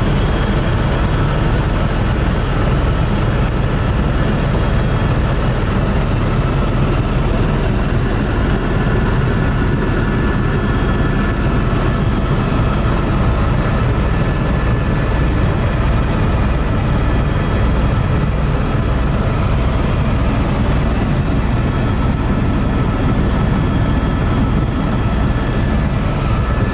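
Helicopter in flight: a steady, loud engine and rotor noise with a low pulsing beat and thin, steady whines above it.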